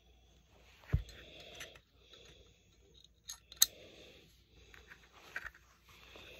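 Metal clicks and knocks of a Desert Eagle .44 Magnum pistol's parts being handled and fitted together during reassembly: a heavy knock about a second in, sharp clicks around three and a half seconds in, and a couple of lighter ones near the end.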